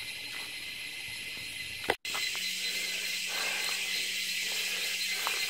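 Steady, high-pitched hiss of a forest insect chorus, with a few faint footstep clicks on the trail. The sound cuts out for an instant about two seconds in and comes back louder.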